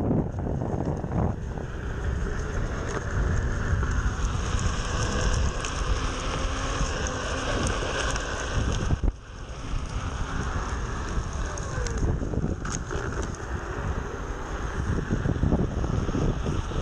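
Onewheel XR electric board riding along on asphalt, its treaded tyre rolling on the pavement under steady wind noise on the microphone. The noise drops briefly about nine seconds in.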